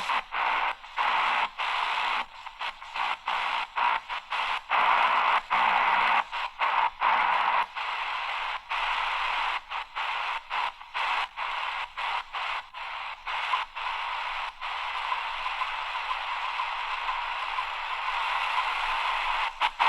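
AGPTEK R09 shortwave radio being tuned quickly through the band: static hiss from its speaker, broken by many short muted gaps as it steps from frequency to frequency, with a brief snatch of a station partway through. The gaps thin out near the end and the hiss runs steady.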